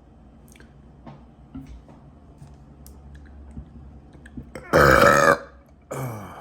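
A man burps loudly once, about five seconds in, his stomach stuffed from a big meal with soda; a shorter, quieter sound falling in pitch follows just before the end.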